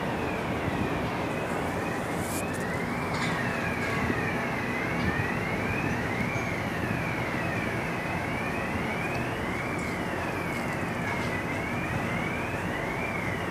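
A siren wailing, its pitch rising and falling steadily about once every second and a half to two seconds, over a steady, dense background noise.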